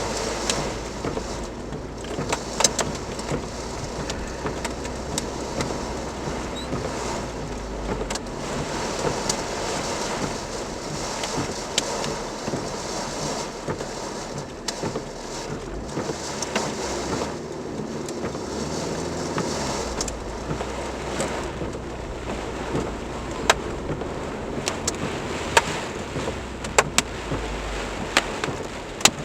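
Heavy rain with hail: a steady downpour hiss broken by many sharp, scattered clicks of hailstones striking hard surfaces. A low rumble comes and goes underneath.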